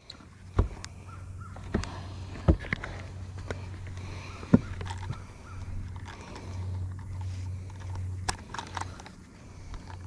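Sharp knocks and handling clatter in a fishing boat as a freshly caught bass is handled for weighing, with several loud knocks in the first half and a quick cluster of short sounds near the end, over a low steady hum.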